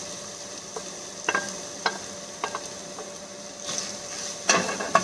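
Ground pork, cabbage and shredded carrot sizzling in a stainless steel skillet as a wooden spatula stirs them. A few light knocks come in the first three seconds, and the loudest clatter of spatula on pan comes about four and a half seconds in.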